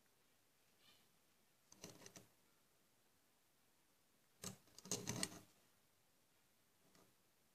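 Mostly near silence, broken by two short bursts of light clicking and rattling, a small one about two seconds in and a louder one about halfway through: the metal piece in its clamp and the silver-plating stylus being handled against it.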